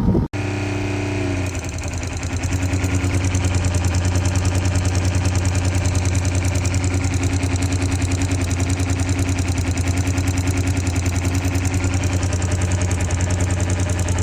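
12V self-priming RV diaphragm water pump running continuously with a steady hum and rapid even pulsing, after a brief cut-out at the start. It keeps running though the water has stopped and won't shut off.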